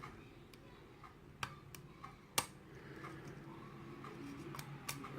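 Faint, scattered metallic clicks and taps of a small hook pick working the pin stacks inside an Ilco lock cylinder under tension, with two sharper clicks about one and a half and two and a half seconds in.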